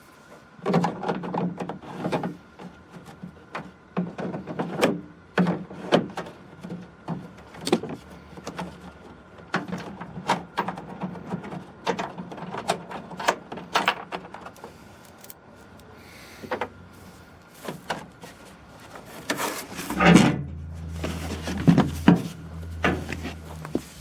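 Irregular clicks, knocks and clatter of hand tools and loose hardware on a Ford F350 pickup's tailgate as its screws and inner panel are taken off. A low steady hum comes in for the last few seconds.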